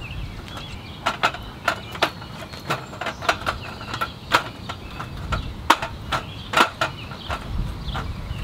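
Aluminum slats of a roll-up camp table top clacking as the top is pressed down and hooked onto its folding frame: a string of irregular sharp clicks and knocks.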